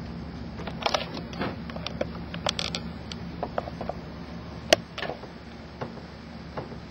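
Marker writing on a whiteboard: a run of short squeaks and taps, with one sharp click a little past halfway, over a steady low hum.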